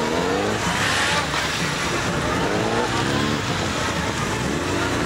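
Engines of several police motorcycles revving up and down and overlapping, the pitch rising and falling repeatedly as the bikes weave through tight turns around cones.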